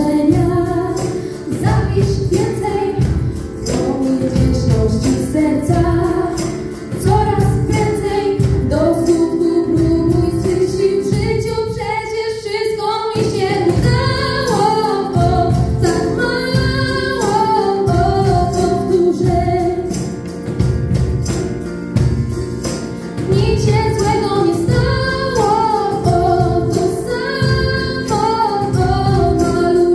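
Two girls singing a song live into microphones, backed by keyboard and percussion with a steady beat.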